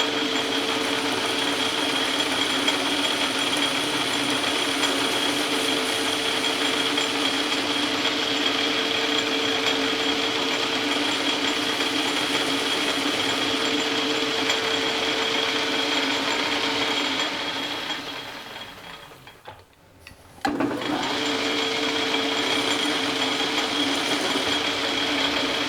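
Metal lathe running steadily with a whine while taking a light cut to enlarge a bore. It spins down to a stop about 18 seconds in and starts up again abruptly about two seconds later.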